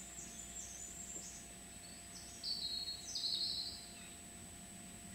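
A small bird singing faintly in the woods: thin, high notes, with two short phrases stepping downward in pitch a little past halfway. A faint steady high whine runs underneath.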